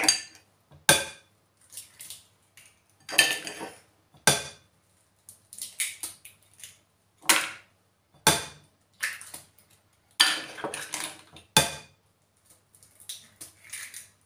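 Eggs being cracked against a glass mixing bowl one after another: about four sharp knocks a few seconds apart, each followed by softer clicks and crackle as the shell is pulled open and the empty shell set down.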